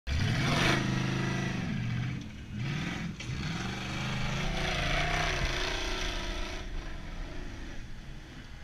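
Engine of an off-road buggy on big tyres revving hard as it climbs a sand hill, the pitch rising and falling again and again as the throttle is worked, then fading as the buggy gets farther away near the end.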